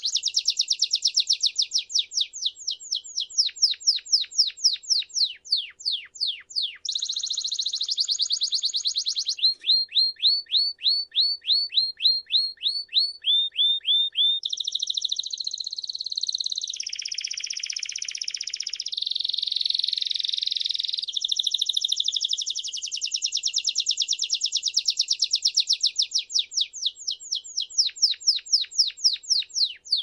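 Domestic canary (canário belga) singing a long, unbroken song made of changing phrases. It opens with a quick series of falling whistled notes, then moves through a fast trill, slower repeated notes and rolling buzzy trills, and returns to quick falling notes near the end.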